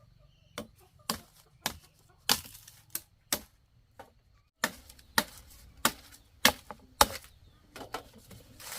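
Repeated chopping with a blade, sharp strikes about two a second, with a short pause near the middle.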